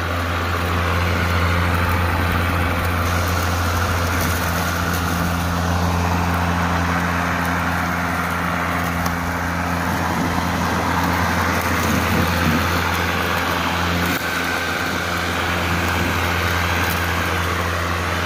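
Hart 40-volt brushless cordless push mower running steadily with a low electric hum and the rush of its spinning blade. Its deck is lowered to vacuum grass clippings and dirt off brick pavers.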